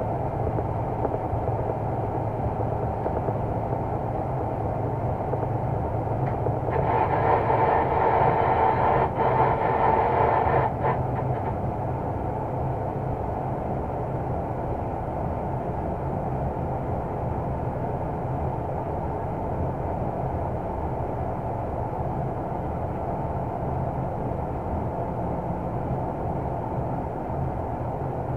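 A 060-DA (LDE2100) diesel-electric locomotive heard from inside its cab while under way: its Sulzer diesel engine runs steadily over the rumble of the wheels on the rails. About six or seven seconds in, a louder, higher-pitched sound rises over it for about four seconds, then stops.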